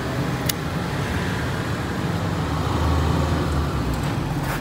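Honda CBR600 inline-four engine idling steadily, a little stronger about three seconds in, with a sharp click about half a second in.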